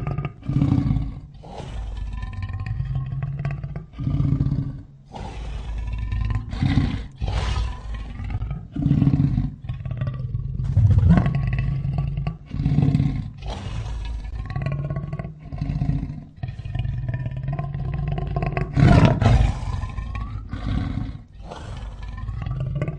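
Big-cat roars and growls sound effect, billed as an American lion, with one call following another every second or two over a deep rumble.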